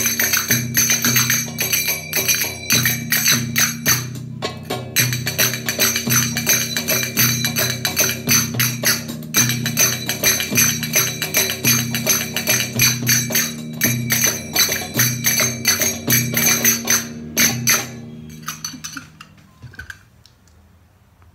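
Brass finger cymbals (zills) struck in fast, rhythmic patterns, ringing bright, over rhythmic backing music. About eighteen seconds in the playing stops, and the music fades out.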